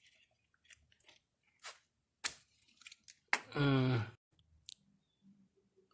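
Small metallic clicks and clinks of a manual impact driver and its screwdriver bit being fitted onto a brake rotor retaining screw, with one sharper click a little over two seconds in.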